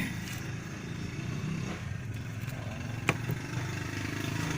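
A steady, low, engine-like drone, with a single sharp click about three seconds in.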